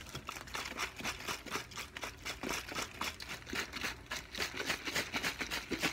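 Thin plastic water bottle crinkling and crackling in the hand in a quick, irregular run of small crackles as it is handled. The bottle has just cracked.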